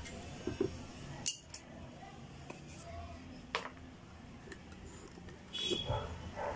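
Scattered short clicks and clinks of metal parts being handled while an amplifier board with its aluminium heatsink is worked on by hand.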